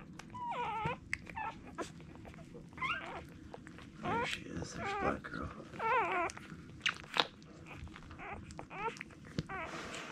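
Newborn Irish setter puppies squeaking and whimpering while they nurse: a string of short, wavering high cries, several overlapping, with scattered small clicks between them.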